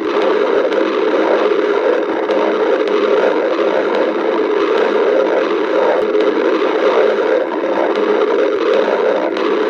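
A person's stomach growling: a continuous rumbling gurgle with no pauses.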